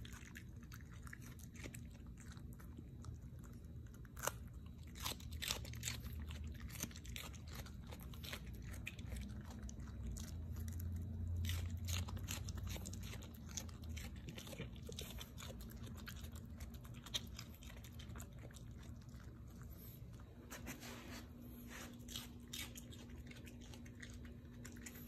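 Small dog chewing pieces of raw red bell pepper, with irregular crunches.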